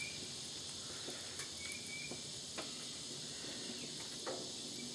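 Pancake batter and butter sizzling on a hot Blackstone flat-top griddle, a steady high hiss, with a few faint taps.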